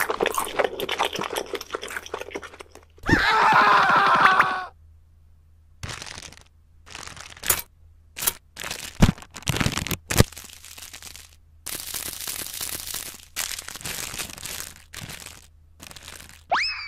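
A run of short crunches and crackles with plastic crinkling as a plastic snack packet is handled over a bowl of noodle snacks. A short rising cartoon boing comes near the end.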